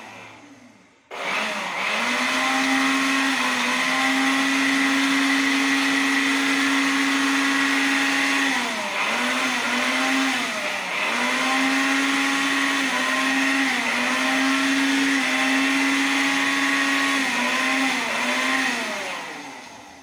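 Homemade mains-powered vacuum cleaner built from a plastic bottle, its motor switched on about a second in and running with a steady whine while sucking dirt off a sheet of paper. The pitch dips briefly several times, and the motor winds down near the end.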